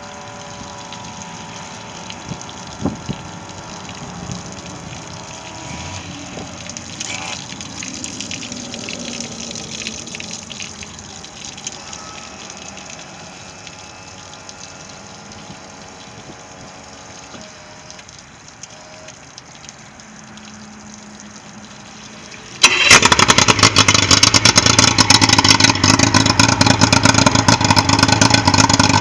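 115 hp Yamaha outboard running at low speed amid water sounds, then throttled up sharply about three quarters of the way through into a loud, steady run under power.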